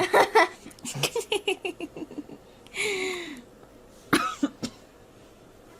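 A person laughing in a run of quick, rhythmic bursts, opening with a sharp cough-like burst. A breathy voiced sound falls in pitch near the middle, and another short sharp burst of laughter or coughing comes about four seconds in.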